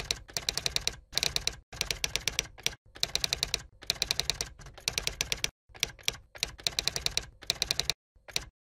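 Typewriter typing sound effect: runs of rapid key clicks broken by short pauses, keeping pace with text being typed out letter by letter.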